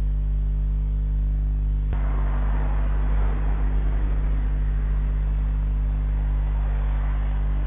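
Steady electrical mains hum picked up by a CCTV camera's microphone. After a click about two seconds in, a car driving past on the street adds engine and tyre noise that swells and then eases.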